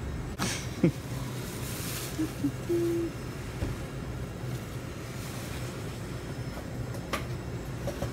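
Steady low hum of store refrigeration, with a few taps and scrapes of a cardboard box as its flap is handled. A few brief low notes sound in the first three seconds.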